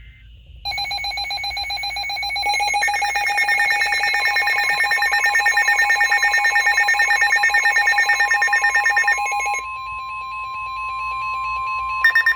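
Emergency weather radio alert: a loud, fast-pulsing electronic alarm of several stacked tones from the alert receiver. A few seconds in, NOAA Weather Radio's steady single-pitch warning alarm tone joins it. The pulsing stops about nine and a half seconds in, leaving the steady tone, and returns near the end.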